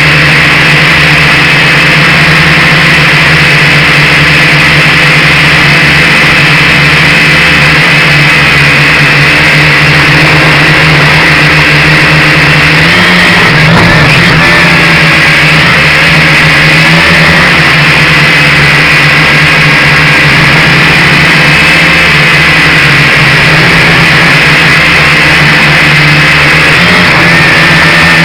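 Drone's propellers and motors buzzing loudly and steadily in flight. The pitch wavers briefly about halfway through as the motors change speed.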